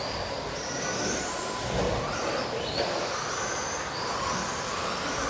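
RC stadium and short-course race trucks lapping a track, their electric motors whining in repeated rising and falling sweeps as they speed up and slow down.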